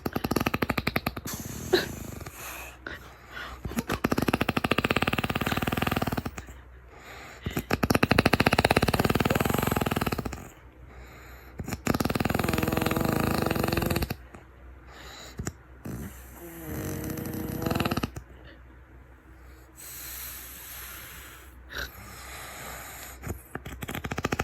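A man snoring in his sleep: a rattling snore about every four seconds, six in all. Some of the snores carry a whistling tone.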